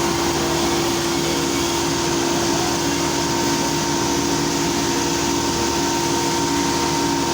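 Steady workshop machine noise: an even hiss under a constant two-note hum, running without change.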